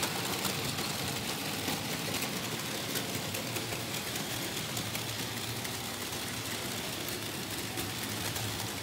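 Märklin H0 model trains running on metal M-track: a steady rattling of wheels over the rails, with a steady low hum.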